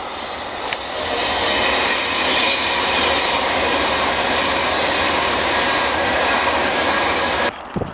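Class 390 Pendolino electric train passing close at speed: a loud rush of air and wheels on rail that swells about a second in and holds steady, then cuts off abruptly near the end.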